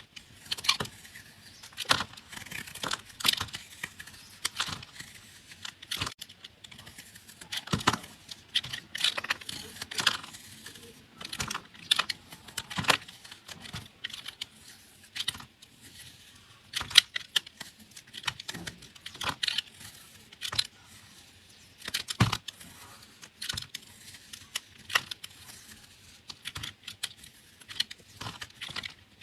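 A blade cutting through dry soap, giving irregular crisp crunches and crackles, several a second, with soft crumbling between them.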